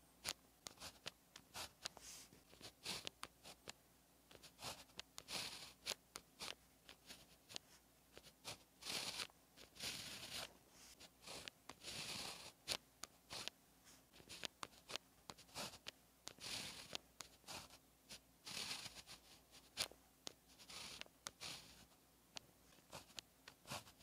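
Pen tip scratching on paper as Chinese characters are hand-written: a run of short scrapes, one per stroke, with brief pauses between them, a few strokes drawn out to about a second.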